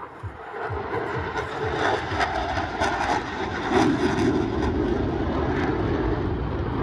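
Blue Angels F/A-18 jets flying past low, a jet roar that builds over the first second or two and then holds loud.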